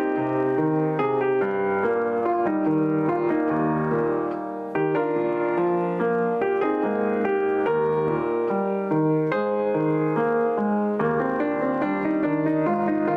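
John Broadwood & Sons barless 6' 8" grand piano being played, a melody moving over sustained chords, with the notes ringing on. About four and a half seconds in the sound dips briefly before a fresh chord is struck.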